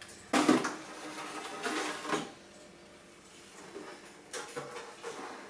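Rear plastic case of a Macintosh Classic being pulled off and handled: a sharp knock about half a second in, a scraping rustle around two seconds, then a few lighter clacks near the end.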